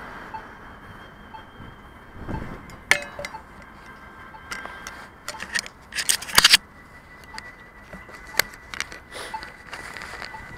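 Faint short beep about once a second, typical of the locator tone of a pedestrian crossing push button, over a steady high whine. Several sharp clicks and clinks cut in, the loudest cluster a little past the middle.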